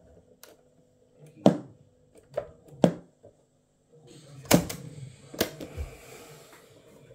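Mechanical piano-key cassette buttons and slide switches on an AIWA CS-W660 boombox clicking, five sharp clicks spread over a few seconds. A hiss runs under the last two clicks for about two seconds.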